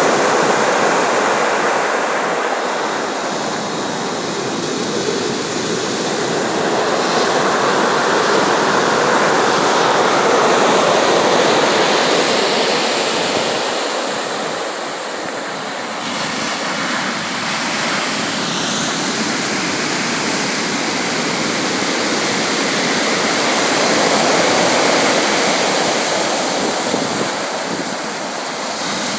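Sea waves breaking and washing on the shore in a continuous rushing noise that swells and eases slowly, with several slow surges over the stretch.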